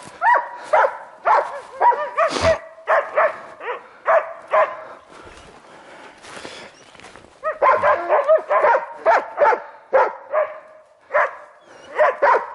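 Hunting laikas barking repeatedly in short, irregular runs, with a quieter spell in the middle.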